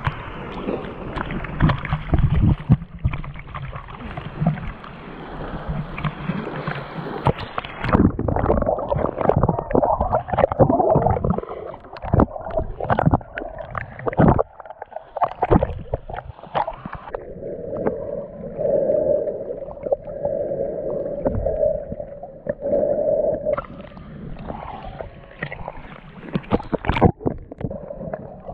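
Sea water sloshing, gurgling and splashing against a half-submerged camera, with irregular splashes and muffled underwater noise as the camera dips below the surface.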